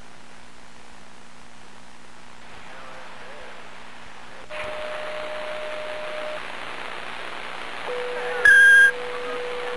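CB radio receiver static hiss that jumps up suddenly about halfway through as a carrier comes on, with a thin steady whistle tone that stops after a couple of seconds and a lower whistle starting near the end. A short, loud beep sounds shortly before the end.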